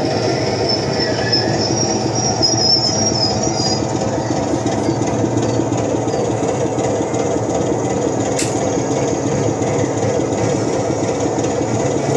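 Recorded train running sound, a steady rumble with wheels squealing over the first few seconds and one sharp click about eight seconds in, played through a model railway layout's back-scene speaker devices.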